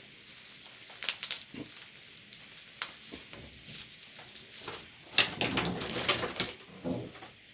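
A gaming-chair armrest being taken out of its packaging: a few sharp knocks and clicks, then a burst of rustling and crunching from about five seconds in, with more knocks.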